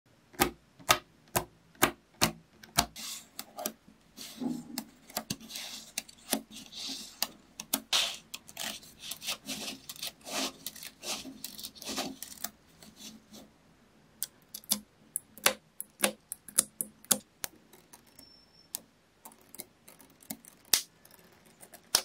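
Small magnetic balls clicking as they snap together and are handled: single sharp clicks about two a second at first, a busier run of clicking and rattling in the middle, then scattered clicks.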